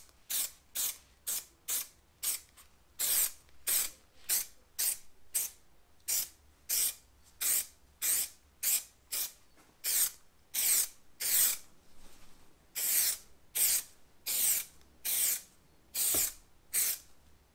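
Aerosol can of Bostik Fast Tack spray adhesive hissing in many short, quick bursts, about two a second, with a brief pause about midway.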